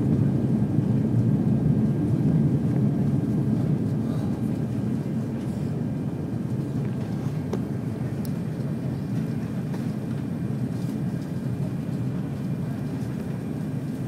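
Airliner cabin noise on the approach to landing: a steady low rumble of jet engines and rushing air, easing a little after about four seconds.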